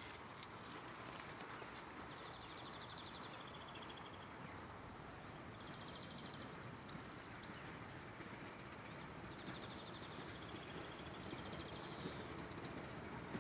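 Quiet summer countryside: short, high, buzzing trills repeated every few seconds, typical of grasshoppers chirping, over a low steady rumble that slowly grows louder toward the end as a distant steam train draws nearer.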